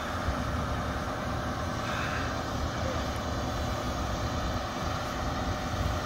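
Steady drone of a boom-truck crane's diesel engine running as the crane lifts a wooden roof truss.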